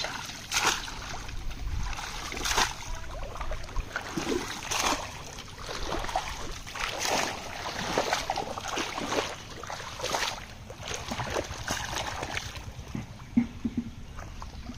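Shallow muddy pond water splashing and sloshing in irregular bursts as people wade and work a bamboo polo fish trap.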